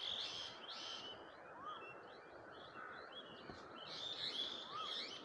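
Birds chirping over and over in short high notes, with a couple of brief rising-falling whistles, over a steady background hiss.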